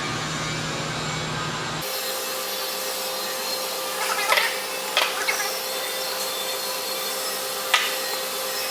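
Steady background hiss with a faint steady hum, and a few light knocks and rattles of parts being handled: a cluster about halfway through and one more near the end.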